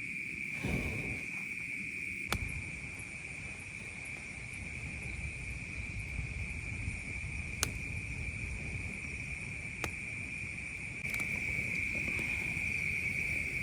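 Steady, high-pitched chorus of night insects, one unbroken shrill tone, with a few sharp clicks about two, seven and a half and ten seconds in.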